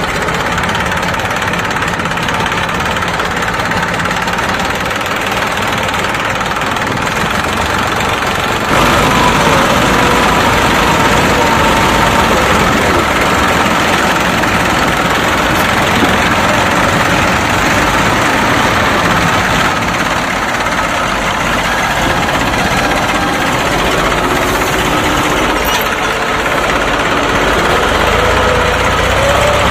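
Tractor engine sound running steadily with a knocking idle, stepping up in loudness about nine seconds in.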